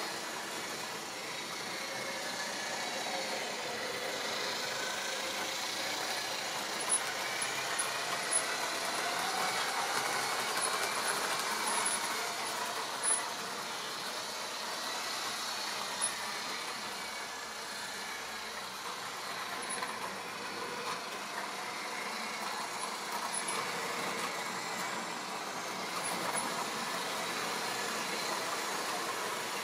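Model railway train running on the track: a steady electric motor whirr that drifts a little in pitch, with a few sharp clicks from about seven to sixteen seconds in.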